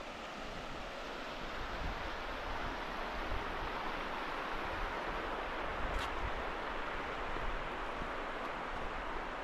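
Buffalo River water rushing steadily over a shallow rocky riffle.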